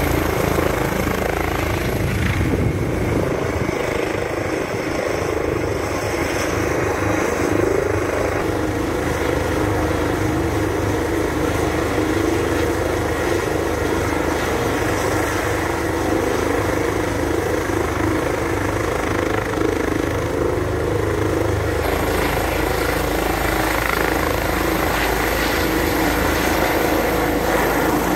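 Airbus EC135 twin-turbine helicopter running on the helipad with its rotor turning. The rotor beat and turbine whine ease off about two seconds in and run steadily. About two-thirds of the way through the turbine whine rises and the rotor beat grows heavier as it powers up and lifts off.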